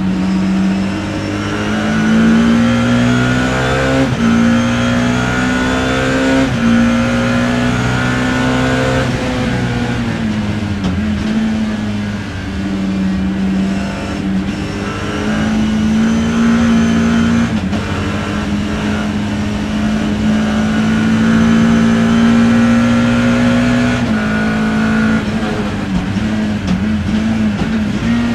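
BMW E30 M3's four-cylinder racing engine heard from inside the car, pulling hard through the gears: the pitch climbs and drops sharply at four quick upshifts in the first nine seconds, eases off, then climbs again with more shifts later on.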